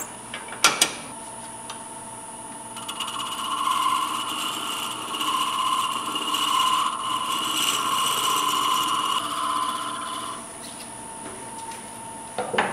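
Turning tool cutting the small wooden knob on a spinning wood lathe: a scraping cut that starts about three seconds in and runs for about seven seconds, over the lathe's steady high whine. Two sharp clicks about a second in.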